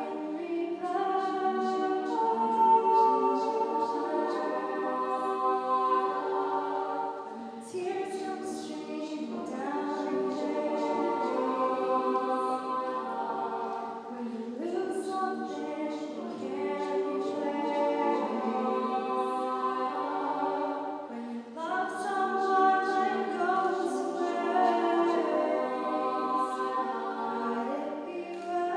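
All-female a cappella group singing: a solo voice over held backing voices, with vocal percussion beats.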